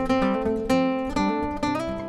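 Background music: an acoustic guitar playing plucked notes and chords, a new one struck about every half second and left to ring.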